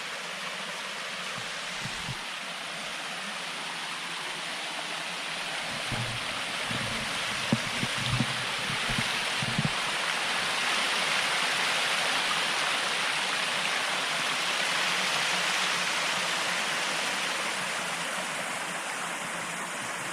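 Small waterfall on a woodland stream rushing steadily, swelling a little toward the middle and easing near the end, with a few low thumps about six to ten seconds in.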